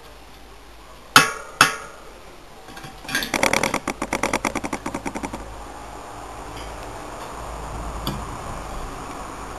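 A bicycle wheel in a truing stand: two sharp metallic clicks from the spoke wrench on a nipple as a spoke is tightened. Then comes a rapid, even ticking of about ten clicks a second for some two seconds, which gives way to a steady whir as the wheel turns.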